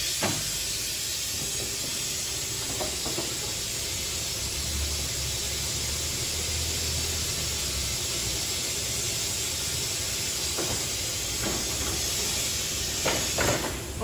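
Steady hiss of air from the electric batch oven's air-operated door mechanism as the door is raised, with a few faint knocks.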